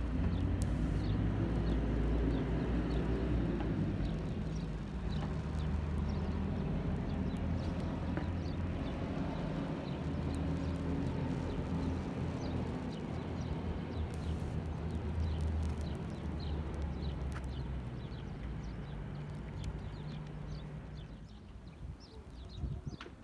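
Burning safety matches crackling, with many small sharp ticks and fizzes as match heads catch one after another along the chain. Under it runs a low steady rumble, the loudest sound, which drops away about two seconds before the end.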